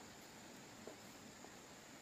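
Near silence: a faint steady hiss, with two faint ticks about a second apart.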